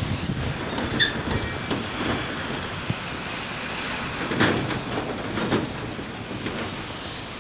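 Strong storm wind rushing through trees, a steady noisy roar that swells in a gust about halfway through and eases a little toward the end.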